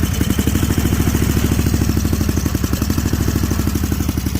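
Snapper Pro 48-inch zero-turn mower engine running steadily with an even, rapid pulsing beat. The owner suspects its carburetor is partly stopped up.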